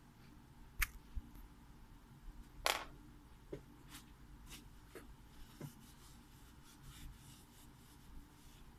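Light clicks and taps of small parts being handled at a workbench, with one short noisy burst about three seconds in that is the loudest sound.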